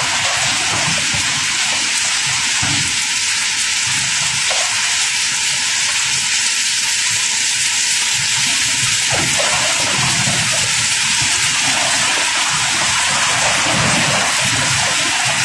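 Cobblestones pouring in a continuous stream as a barge's cargo is unloaded: a steady rushing clatter with irregular deeper rumbles underneath.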